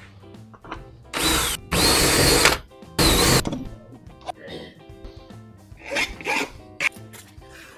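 A small handheld power tool run in three short bursts, its motor whine bending in pitch as it spins up and slows down, under soft background music.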